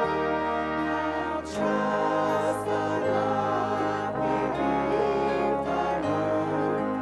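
Slow instrumental music of held chords in a brass-like tone, the harmony moving to a new chord about every two seconds.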